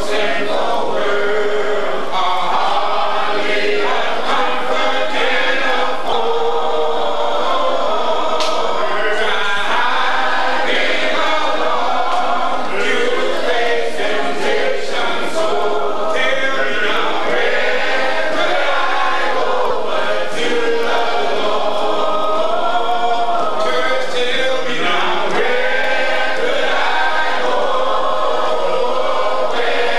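Group of voices singing a gospel song together, a choir or congregation, with no instruments standing out.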